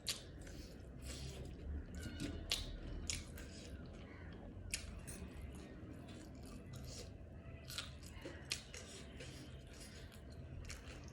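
Close-up eating sounds: a person chewing, with irregular crisp crunches and clicks of the mouth and food.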